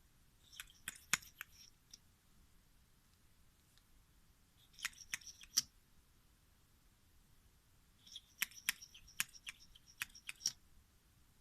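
Clear slime being squished and worked by hand, giving sharp sticky clicks and small pops in three short bursts.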